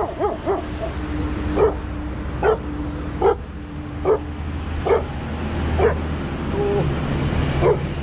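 A street dog barking in short, sharp barks, about nine of them at roughly one a second, with a longer gap near the end.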